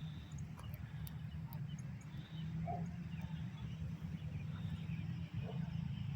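Faint, scattered calls of waterfowl on a pond over a low, steady rumble.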